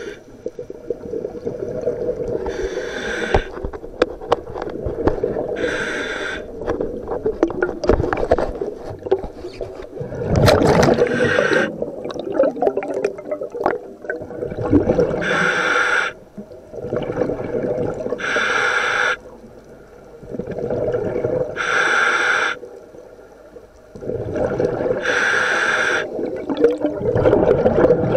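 Scuba diver breathing through the regulator of a full-face mask underwater. A hissing inhale comes every three to four seconds, and each is followed by a long gurgle of exhaled bubbles.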